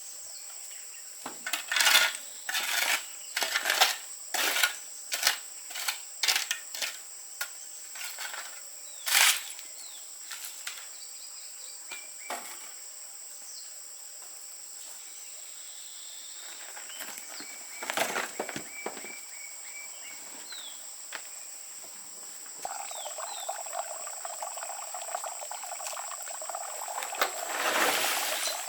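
A run of sharp, irregular knocks and clicks over a steady high drone of insects. Two-thirds of the way in, a steady rush like pouring or running water sets in.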